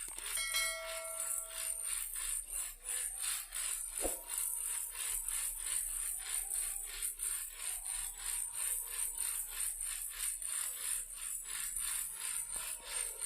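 A toy car rattling when shaken, in an even rhythm of about three shakes a second. A short chiming tone sounds about half a second in, and there is a single sharp knock about four seconds in.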